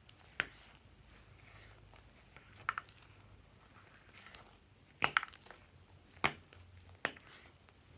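Foamy slime with foam beads being stirred and folded with a plastic spatula in a glass dish: about half a dozen short, sharp squishy clicks and pops a second or two apart over a faint background.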